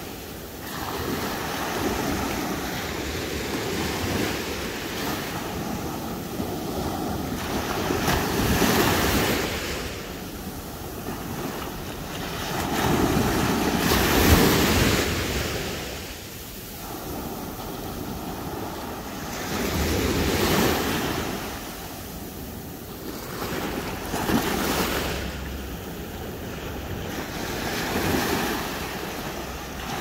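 Small ocean waves breaking and washing up a sandy beach. The surf swells and fades every five or six seconds, loudest about fourteen seconds in.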